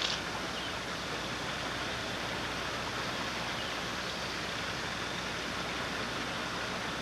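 Steady rush of flowing water from a garden stream, with a short click right at the start.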